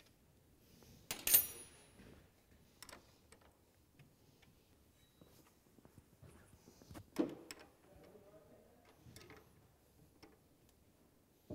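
Scattered metallic clinks and taps of a spanner and parts on the moped's rear shock and frame mounts during reassembly. The loudest clink comes about a second in with a brief high ringing, and another sharp tap comes about seven seconds in.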